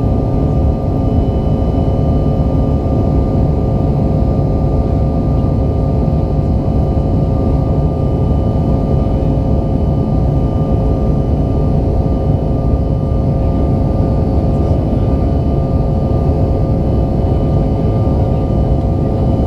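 Inside the cabin of a Bombardier CRJ-900 in flight, its rear-mounted GE CF34 turbofans and the airflow make a steady drone. A deep rumble runs under several steady whining tones, with no change in pitch or level.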